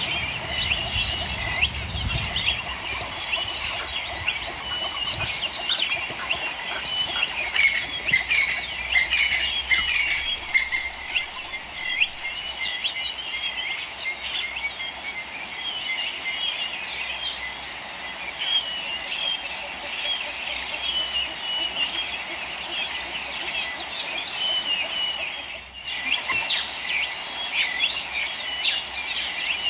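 Many small birds chirping and twittering together in a dense, continuous chorus of short high calls.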